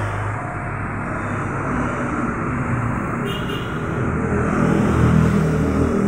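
Steady low rumble of road traffic, with a vehicle engine swelling louder about five seconds in.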